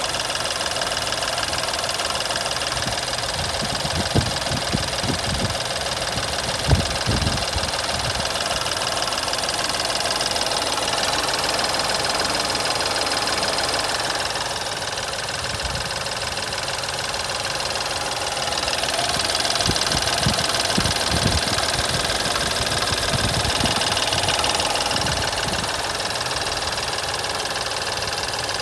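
BMW F11 528i Touring engine running with a diesel-like clattering rattle, the abnormal engine noise that the owner hears when starting it. A few sharper knocks stand out a few seconds in and again past the middle.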